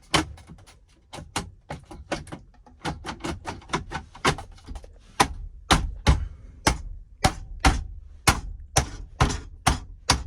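Plastic dash trim cover being tapped and knocked into place by hand: a long run of sharp knocks, settling into about two a second in the second half.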